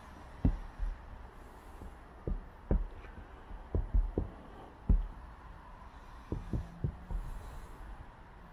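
Footsteps of a person walking in snow: a run of muffled low thuds at an uneven walking pace, some in quick pairs.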